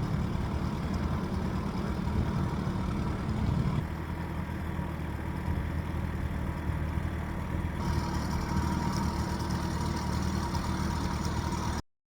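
Boat motor running steadily, changing in tone about four and eight seconds in, then cutting off abruptly just before the end.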